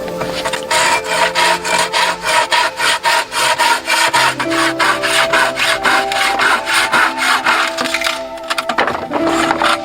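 Hand saw cutting through wood in quick, even back-and-forth strokes, about four or five a second, stopping near the end. Soft background music runs underneath.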